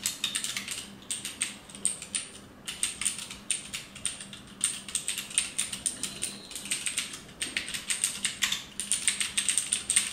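Cherry MX Board 3.0S mechanical keyboard with Cherry MX Blue switches being typed on fast: a dense run of crunchy, clicky keystrokes broken by a few short pauses.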